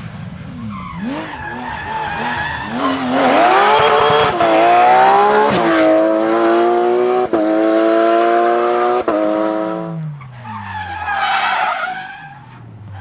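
Porsche 911 GT3 rally car's flat-six engine at full throttle out of a bend, tyres scrabbling on dusty asphalt at first, then climbing in pitch and upshifting three times as it accelerates away, each shift a sudden drop in pitch before it climbs again. Near the end the engine note falls away.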